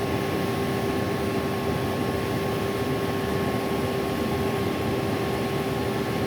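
Combine harvester running: a steady mechanical drone with a constant low hum.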